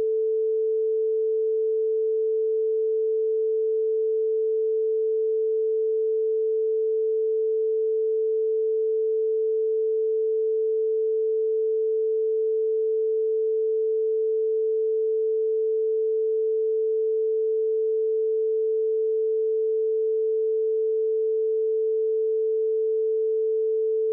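A steady, unbroken pure tone with a mid pitch, like a test beep, laid over a redacted stretch of the interview recording to mask the censored speech.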